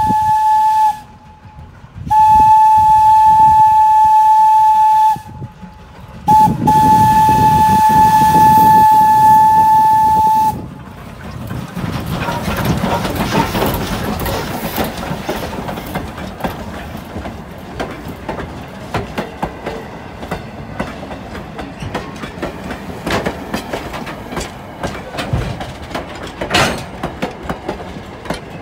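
Steam whistle of a coal-burning tank engine screaming a single steady note in blasts: long, long, short, long, the grade-crossing signal. Then the locomotive and its passenger coaches roll past close by, the wheels clicking over the rail joints.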